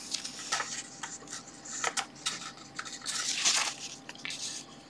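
Pages of a spiral-bound paperback book being turned by hand: a run of short paper rustles and crinkles, with a longer rustle about three seconds in.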